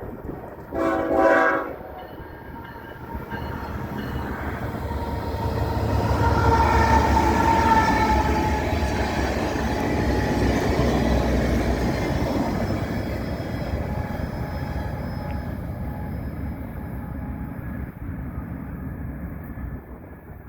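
BNSF diesel locomotive's horn gives one short blast about a second in. The train then approaches and passes: engine and wheel rumble on the rails builds to its loudest around seven seconds in, then fades slowly.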